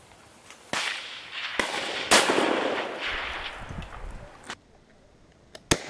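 Sharp reports from a Blaser R93 rifle in .338 Lapua Magnum: several cracks in the first two seconds, the loudest about two seconds in, with a long rolling echo that fades out. Another sharp crack comes near the end.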